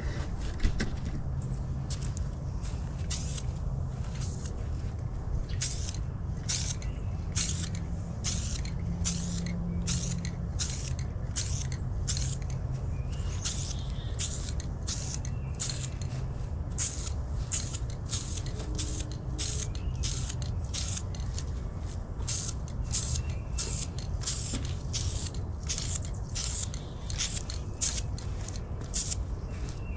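Aerosol spray can of satin enamel paint hissing in many short bursts, about one to two a second, as a thin first coat goes on. A steady low rumble runs underneath.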